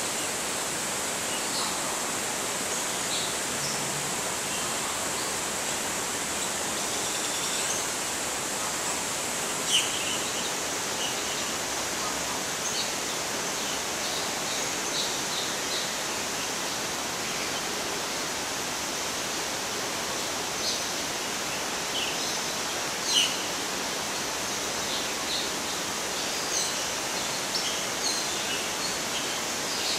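Short, high chirps of small birds, scattered and intermittent, the most prominent about ten seconds in and again a little past twenty-three seconds, over a steady rushing background noise.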